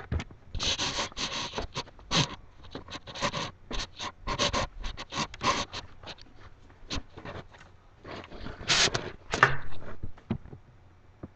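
Irregular rustling and scraping as a chihuahua is handled and taken to the bathtub, busy for the first half, quieter past the middle, with a louder scrape about nine seconds in.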